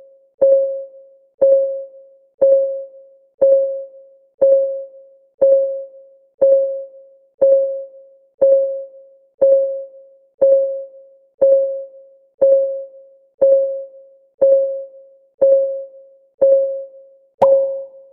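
Countdown timer's ticking sound effect: a short pitched tick, steady at one per second, each dying away quickly. Near the end the tick turns sharper and brighter.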